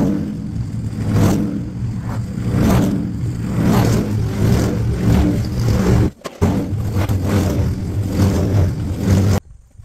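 Toro walk-behind gas lawn mower engine running steadily while being pushed across grass, swelling and easing in loudness every second or so. The sound breaks off briefly past the middle and drops away suddenly near the end.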